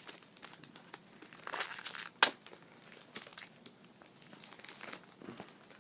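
Wrapper of a WWE trading card pack crinkling and tearing as it is opened, with a louder rustle and a sharp snap about two seconds in, then softer crackles.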